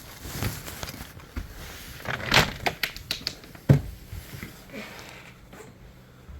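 A string of sharp clicks and knocks, ending in one heavier thump a little under four seconds in.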